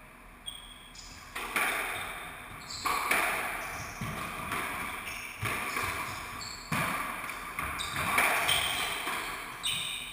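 Squash rally in an enclosed court: about seven sharp hits of racket and ball against the walls, roughly one every second and a half, each ringing on with a long echo, with short high squeaks from shoes on the wooden floor in between.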